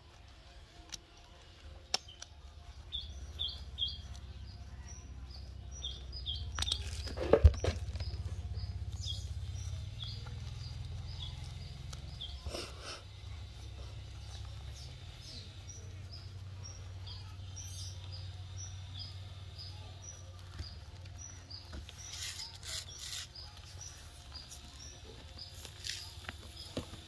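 Small birds chirping in short, repeated high calls over a low steady rumble that sets in about three seconds in, with light rustling and a sharp thump about seven seconds in.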